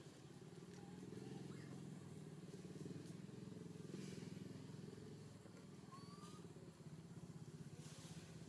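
Faint steady low drone of a distant engine, with a couple of faint short bird chirps about six seconds in.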